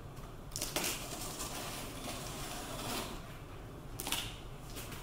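Packing tape on a cardboard box being cut, in a few rasping strokes about a second in, near three seconds and around four seconds.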